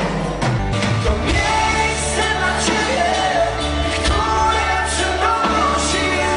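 Live rock band playing a song, a male lead singer singing over drums and bass guitar.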